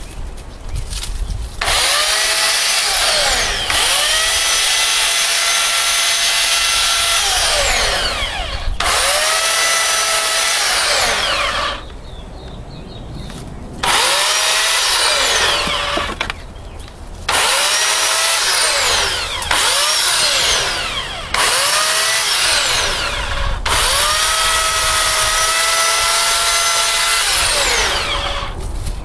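Stramm 2000 W electric chainsaw triggered in about eight bursts of a few seconds each, cutting dead branches. In each burst the motor's whine rises as it spins up, holds steady, then falls away as the trigger is released, with short pauses between bursts.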